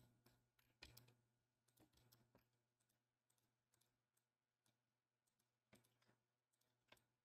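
Near silence: faint room tone with a low steady hum and a few scattered faint computer mouse clicks.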